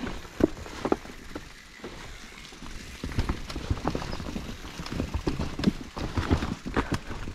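Enduro mountain bike clattering over rough trail: irregular knocks and rattles from the tyres, chain and frame, sparse for the first couple of seconds and then coming thick and fast.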